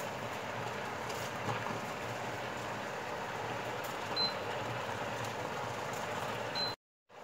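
Sliced leeks sizzling as they cook down in a steel pot on the hob: a steady hiss. Two short high beeps come about four and six and a half seconds in, and the sound cuts off suddenly near the end.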